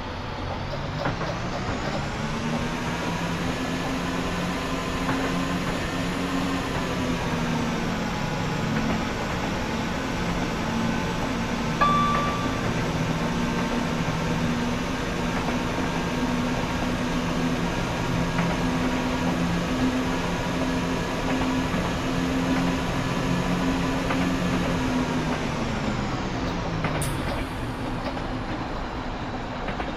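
Class 172 Turbostar diesel multiple unit running under power. Its underfloor diesel engine revs up over the first couple of seconds and holds a steady drone over constant rail noise, with a brief dip in pitch about seven seconds in. The engine winds down again near the end. A short sharp click comes about twelve seconds in.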